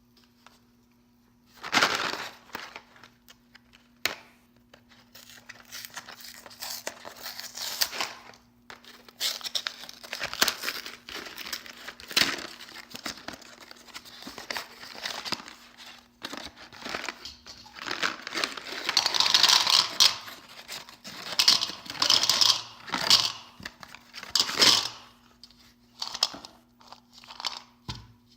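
Candy packaging being crinkled and torn open by hand, in irregular bursts with sharp clicks. The loudest, densest crinkling comes about two-thirds of the way through.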